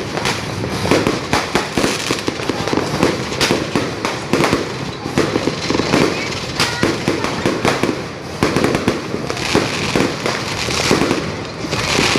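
Dense, continuous barrage of firecrackers and fireworks going off: many overlapping cracks and bangs with no pause.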